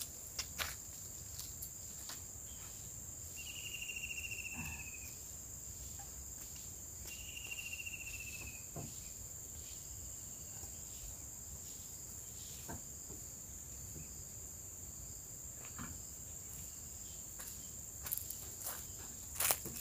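Steady high-pitched drone of insects, crickets or cicadas, with two short pulsed trills, each falling slightly in pitch, in the first half, and scattered light clicks and knocks.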